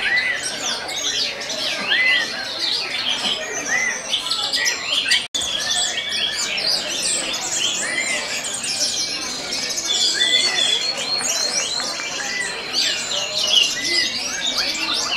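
Several orange-headed thrushes singing at once, a dense overlapping mix of rich warbled phrases, whistles and chirps with short arching notes repeated throughout. The sound drops out for an instant about five seconds in.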